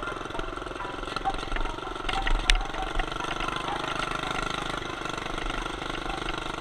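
Minibike's Stage 1 Predator 212 single-cylinder four-stroke engine running steadily, with rapid even firing pulses; its exhaust pipe has broken off, so it runs with an open exhaust.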